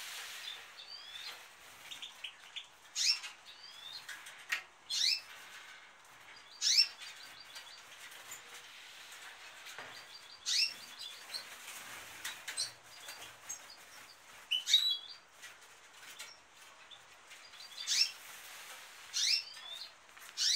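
Small caged finches chirping: short, sharp calls that sweep down in pitch, coming at irregular intervals, sometimes two or three in quick succession.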